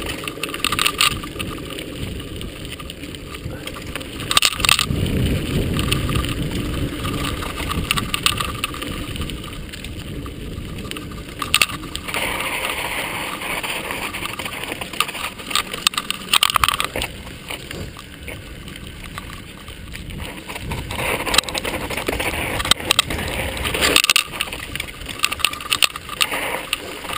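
Mountain bike rolling along a dirt singletrack: tyre noise on the trail, with frequent rattles and knocks from the bike as it goes over bumps.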